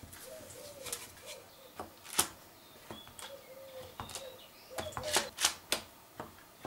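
Light clicks and taps of a fork pricking a rolled sheet of shortcrust dough on a metal baking tray, several in quick succession about five seconds in. A dove coos faintly and repeatedly in the background.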